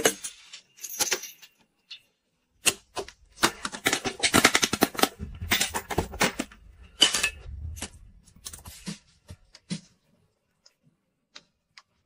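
Stiff paper rustling and crackling as a large copybook sheet is handled, in irregular clicks and crinkles. They are densest in the middle and die away to near silence about ten seconds in.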